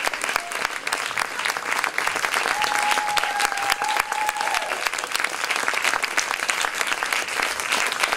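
Theatre audience applauding with dense, steady clapping after a dance performance ends. About two and a half seconds in, one person in the crowd holds a long cheer for about two seconds.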